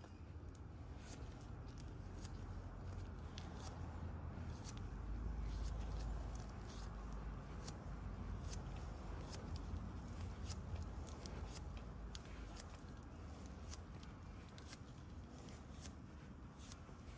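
Steering-stem bearing being hand-packed with heavy-duty grease, pressed and rolled in a gloved palm: faint wet handling with many small sharp clicks from the bearing and glove, over a low rumble that swells about five seconds in.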